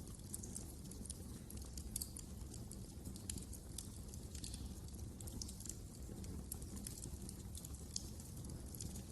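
Wood fire burning in a fireplace: a steady low rumble of the flames with frequent small sharp crackles and pops.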